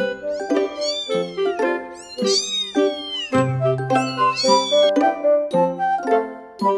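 Maine Coon–Persian cross kittens mewing, several high-pitched calls that rise and fall, over background music.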